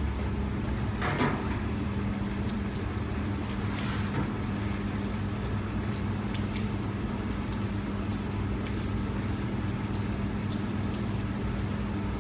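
Speidel water-bladder press squeezing grated onion: the juice trickles and patters steadily into a plastic tub, over a constant low hum.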